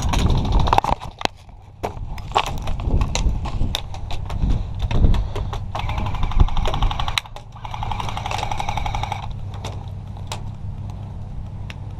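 Airsoft guns firing: sharp single shots scattered throughout, and a rapid run of shots from about six to nine seconds in, over a steady low rumble.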